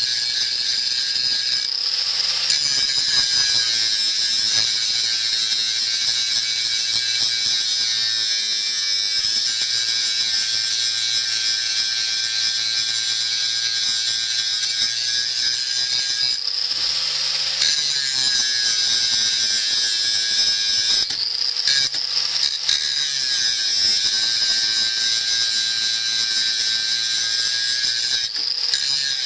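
Abrasive power grinder working on steel during deburring and polishing: a steady high-pitched motor whine with a gritty grinding noise. The pitch sags slightly and the noise thickens a few times as the abrasive is pressed on.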